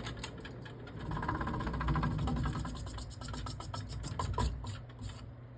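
1990 CEI spinner ceiling fan coasting down after being switched off, with a rhythmic rubbing scrape from the motor that stops about five seconds in, leaving a low hum.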